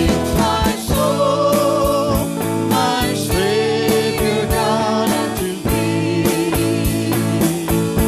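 Christian worship song: a sung melody with vibrato over a band with sustained bass notes and a steady drum beat.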